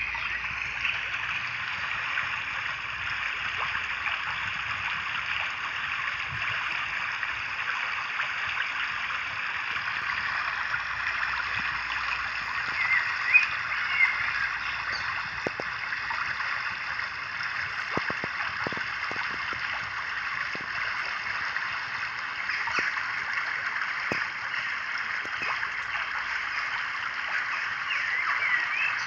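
Steady rushing, stream-like water noise, with one brief louder splash near the middle.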